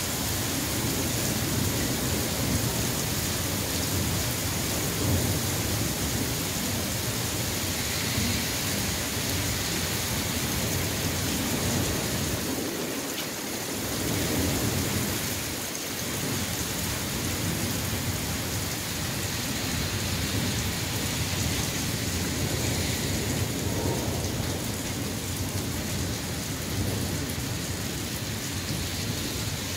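Heavy rain pouring down in a thunderstorm, a steady hiss of falling water with a low, shifting rumble of thunder underneath.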